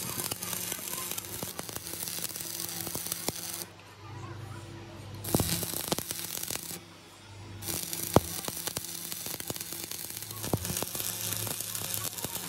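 Stick-welding arc crackling and hissing as weld is built up on a worn excavator bucket pin turning in a lathe, over a steady machine hum. The arc drops out twice for about a second, about four and seven seconds in, and a sharp click comes about eight seconds in.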